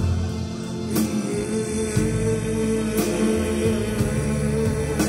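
Live band playing: a bass line under held chords, with a sharp hit about every two seconds.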